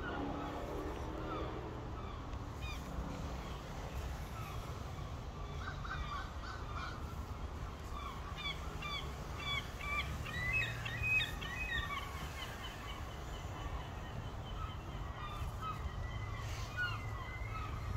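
Birds calling outdoors, many short chirps that come thickest as a rapid flurry about halfway through, over a steady low rumble.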